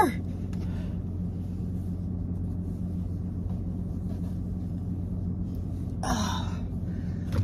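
Steady low hum inside a vehicle's cab, with a short breathy exhale from a person about six seconds in.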